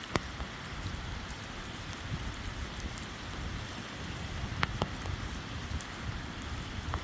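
Steady pouring rain, with a few sharp drop clicks close by, one near the start and two more over halfway through, over a low rumble.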